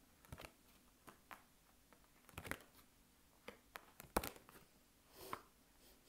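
Tarot cards being handled and laid down: a string of soft separate slides and taps, the sharpest a click about four seconds in.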